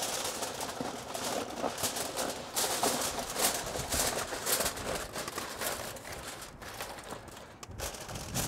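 Heavy-duty aluminium foil crinkling as it is pressed and crimped down over the rim of a disposable aluminium foil pan to seal it tight, an irregular crackle.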